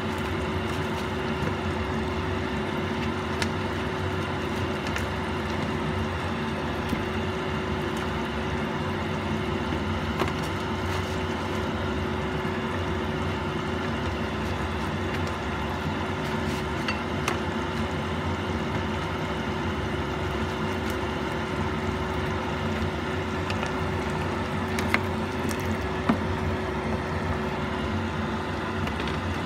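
A pot of apritada stew simmering under a steady hum, with a few light clicks, two of them sharper near the end.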